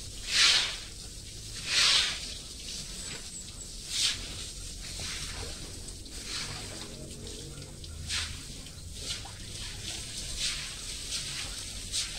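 Water from a garden hose splashing onto wet concrete in short hissing spurts every second or two, strongest in the first four seconds.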